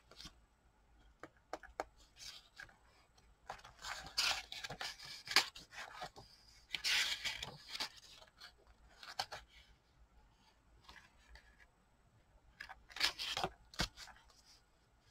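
Paper rustling and scraping as the pages of a handmade paper journal are turned and handled, with a few sharp taps and clicks in between.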